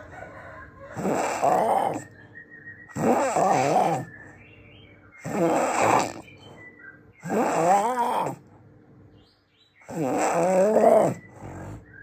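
A person snoring loudly: five long snores about two seconds apart, each with a rasping pitched tone that rises and then falls, with a longer pause before the last one.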